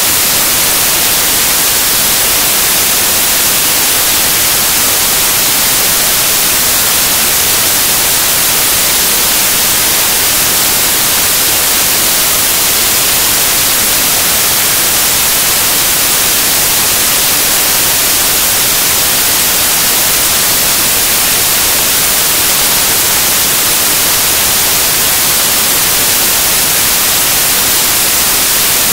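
Loud, steady hiss of static like white noise, even and unchanging, with nothing else heard through it.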